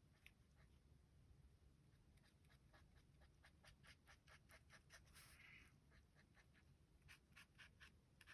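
Faint felt-tip marker strokes on paper, outlining a cut-out shape: many short strokes in quick succession, coming thicker from about two seconds in.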